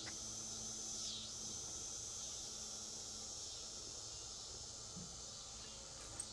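Faint, steady high-pitched drone of an insect chorus, dipping briefly in pitch near the start and again about a second in.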